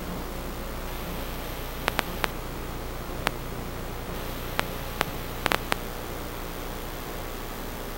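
Steady electronic static hiss with a low hum underneath. About nine sharp clicks break through, bunched between two and six seconds in.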